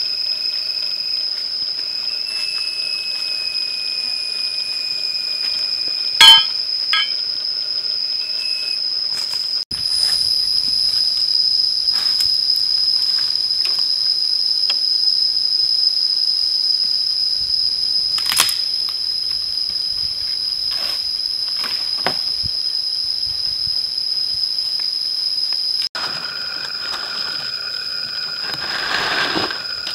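Forest insects shrilling in a steady, high-pitched drone, with a sharp knock about six seconds in and a fainter click around eighteen seconds.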